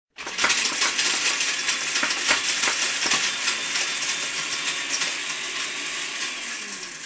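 Blender running with hard pieces inside, a dense rattle of clicks and clinks against the blade and jar, fading out near the end.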